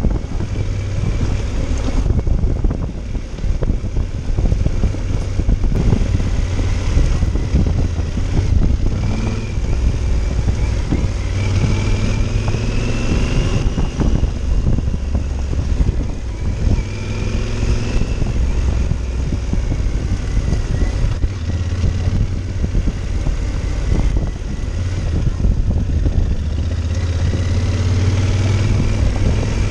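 Yamaha Super Ténéré's parallel-twin engine running as the bike is ridden on a dirt forest road, with wind buffeting the microphone.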